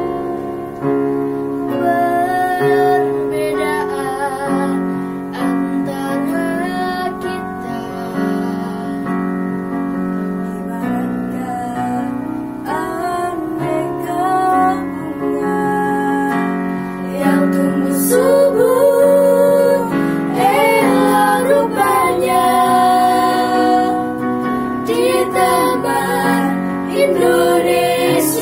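A small group of teenage girls singing a song together, accompanied by chords on a Yamaha electronic keyboard. The singing grows louder a little past the middle.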